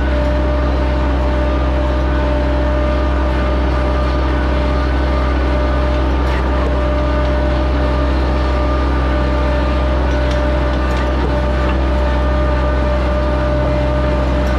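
A motor running at a steady, unchanging speed with a constant hum.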